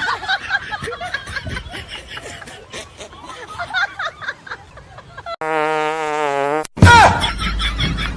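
Prank fart sound effects: a steady buzzing fart lasting just over a second about five seconds in, then a louder, lower blast near the end, over a jumble of background voices and clatter.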